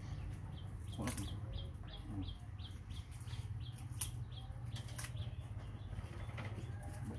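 A small bird chirping steadily, short high falling chirps about three a second, over a low steady hum, with a few sharp clicks.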